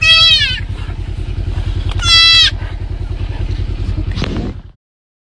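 Baby deer bleating twice, short high-pitched calls that fall in pitch at the end, over a low steady engine-like drone; everything cuts off near the end.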